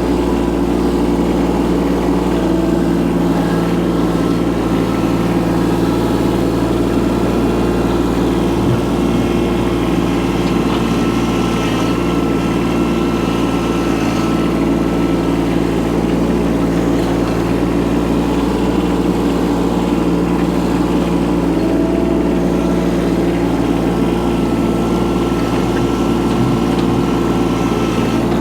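Micro excavator's engine running steadily at an even pitch.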